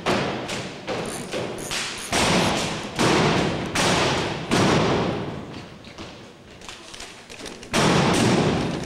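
Armed drill team's rifles and boots striking in unison: a quick run of sharp taps and thumps, then several heavier, louder impacts that echo off the gymnasium's hard walls.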